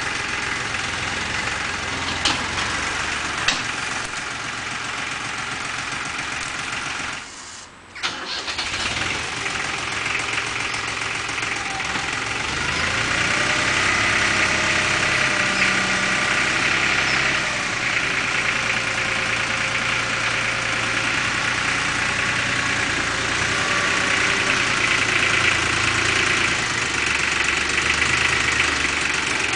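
Lenar FS 254 II compact tractor's diesel engine running steadily, its note rising and falling a little in the middle as the loader tractor works. The sound breaks off briefly about seven seconds in, then comes back louder.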